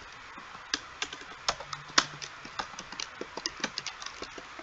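Typing on a computer keyboard: a run of quick, uneven key clicks, some sharper than others.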